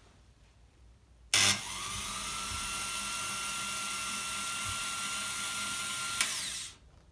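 Märklin 7186 H0 model turntable's electric drive turning the bridge: a sharp click about a second in, then a steady high-pitched mechanical whir, a second click near the end, and it stops.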